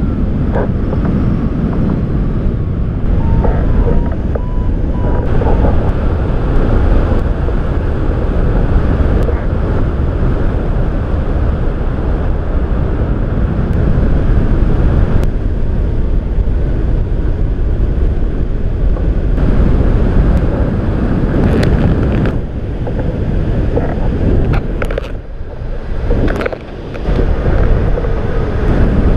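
Wind from the airflow of a hang glider in flight buffeting the camera microphone, a steady loud rush strongest in the low end, easing briefly twice near the end.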